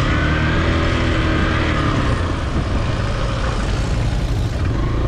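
Hero XPulse 200 motorcycle's single-cylinder engine running while riding, its pitch shifting up and down with the throttle, and a steady rushing noise over it.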